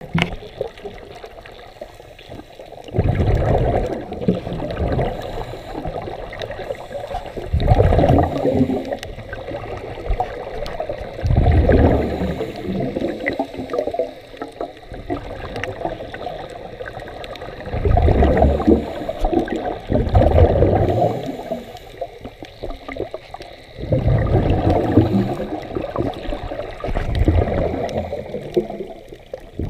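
Scuba regulator exhaust bubbles heard underwater: a bubbling rush comes in surges every few seconds, about seven times, with quieter hiss between them, the rhythm of a diver breathing through the regulator.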